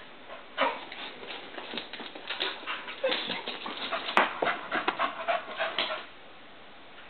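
Staffordshire bull terrier panting hard and fast, mixed with short whimpers and a thin whine, from about half a second in until around six seconds; she is worked up and excited.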